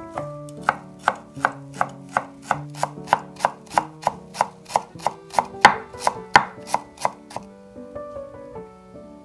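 Chef's knife chopping fresh dill on a wooden cutting board, in steady strokes about three a second that stop near the end.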